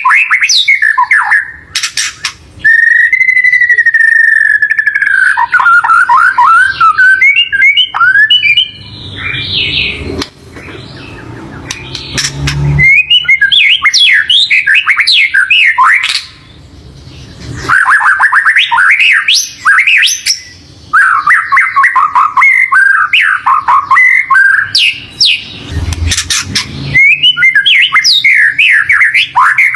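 White-rumped shama singing a loud, varied song of clear whistles, rising and falling glides and fast chattering trills, with short breaks between phrases about ten and sixteen seconds in.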